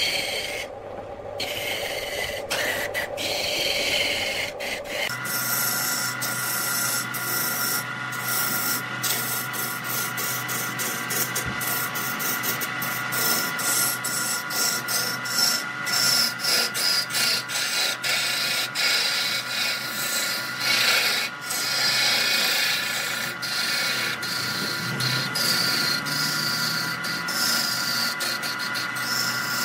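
Electric wood lathe running while a hand-held gouge cuts the spinning wooden vase blank: a steady motor hum under the noisy hiss of shavings peeling off the wood. The cutting sound shifts about five seconds in.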